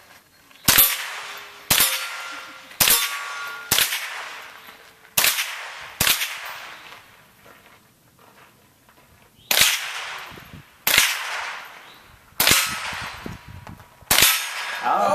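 Rifle shots fired one at a time, ten in all, about one to one and a half seconds apart with a pause of a few seconds midway. Several shots are followed by the brief ring of a struck steel plate target.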